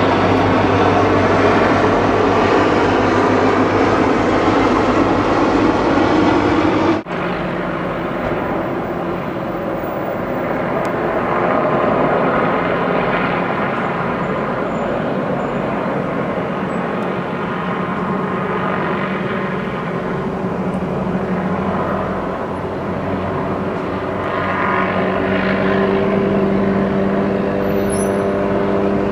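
Low-flying military helicopters overhead: a loud, steady rotor and engine drone with several held tones. It breaks off sharply about seven seconds in and resumes with a different pitch, swelling again near the end.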